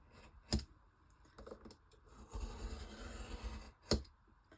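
Utility knife drawn along a steel ruler through thick book-cover board: one long scratchy scoring stroke of about a second and a half, with a sharp click before it and another just after it. A repeated pass along the same cut line, the blade nearly through the board.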